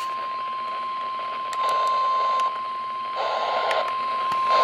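NOAA Weather Radio warning alarm tone: one steady, unbroken high tone over radio static that swells in patches. The static is louder about one and a half seconds in, and again after about three seconds. This is the attention signal that comes before a warning broadcast, here a tornado warning.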